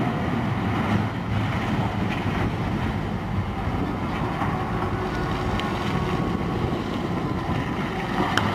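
Steady low rumble of heavy open-pit mining machinery, a P&H 4100 XPC electric rope shovel working over a haul truck, with a few sharp clicks near the end.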